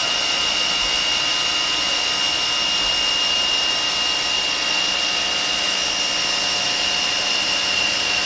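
CNC milling machine spindle running at high speed with a small drill cutting holes in Delrin plastic: a steady high whine over an even hiss, with no change in pitch or level.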